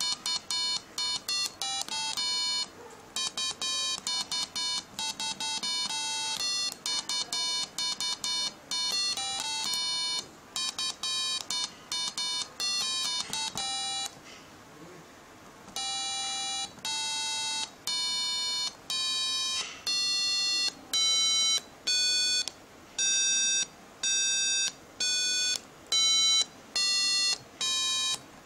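Electronic buzzer, of the kind an Arduino drives, playing a tune of short buzzy beeps at changing pitches. Quick runs of notes come first, then after a pause of about two seconds come slower separate notes, about one a second, climbing in pitch.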